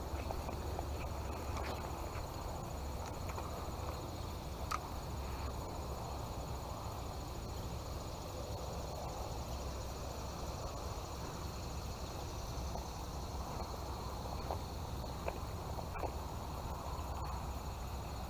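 Steady outdoor background of insects trilling at a constant high pitch over a low rumble, with a few faint clicks.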